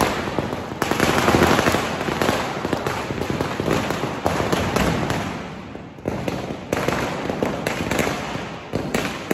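Firecrackers going off continuously: a dense crackle of bangs, easing off about five seconds in, then more scattered sharp cracks.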